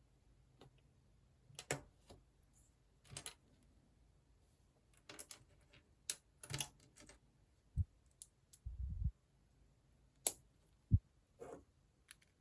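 Plastic building blocks clicking as pieces are handled and pressed together, in irregular scattered clicks, with a few dull thumps.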